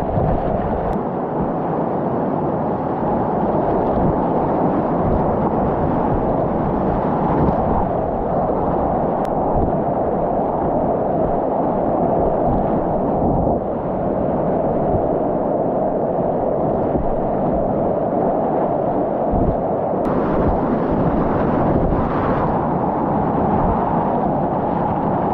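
Whitewater rapids rushing steadily around a kayak on a river, a loud, even rush with a couple of brief hissier surges near the end.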